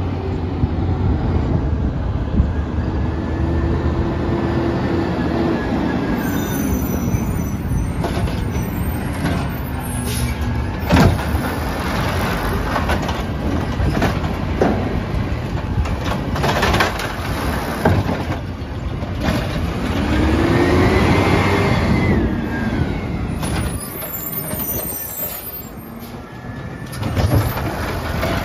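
Peterbilt 320 side-loading garbage truck running its diesel engine while the automated hydraulic arm lifts and dumps a cart. The engine's pitch rises and falls twice as the arm works, with sharp knocks and clanks of the cart against the arm and hopper scattered through the middle.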